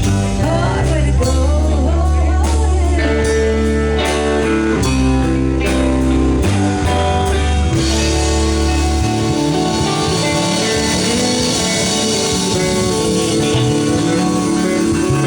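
Live band playing with electric guitar, bass and drums. About eight seconds in the bass drops out and a sustained cymbal wash takes over.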